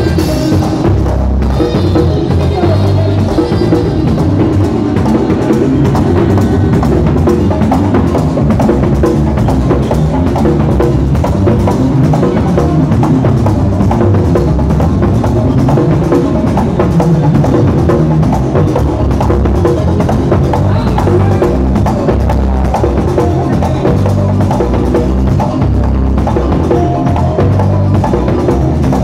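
Dominican merengue típico band playing live and loud, with tambora and conga drums driving a fast, steady beat under saxophone and bass.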